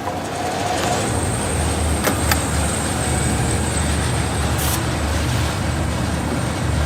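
Folding-box tape applicator machine running: a steady high whine comes in about a second in over a low hum, with a couple of sharp clicks and a short hiss partway through.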